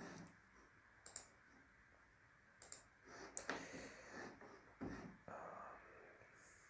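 Faint computer mouse clicks and keyboard key presses, a handful of short separate clicks spread over several seconds.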